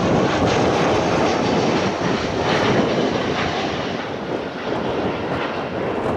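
Airbus A320's twin jet engines running at low taxi power as the airliner rolls toward and across in front of the listener. A steady rushing jet noise with a faint high whine on top eases slightly in the second half.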